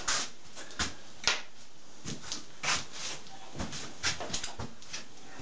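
Pear fritters frying in oil in a frying pan on an electric hot plate: a steady sizzle broken by a dozen or so irregular sharp pops and spits of the hot oil.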